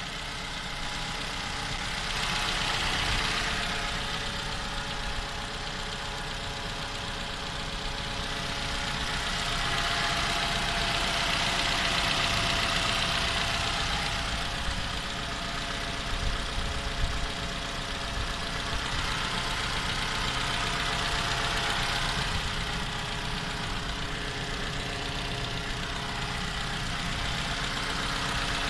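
Toyota 2AR-FE 2.5-litre four-cylinder engine idling with an extraneous knock, a noise the owner hears only when the engine is cold and for its first ten minutes of running. A higher hiss swells and fades a few times over the engine's steady note.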